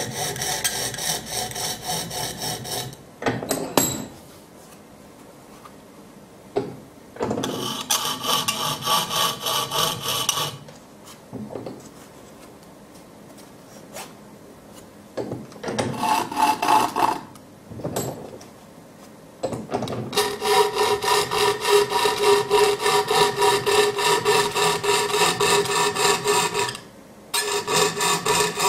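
Coping saw cutting curved jigsaw-puzzle lines through a thin board with quick, rasping back-and-forth strokes. The sawing comes in several runs with short pauses between them, and the longest run is in the second half.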